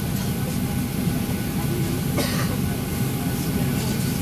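Steady low drone of a Boeing 737-800 cabin with faint steady whine tones, and a short cough about two seconds in.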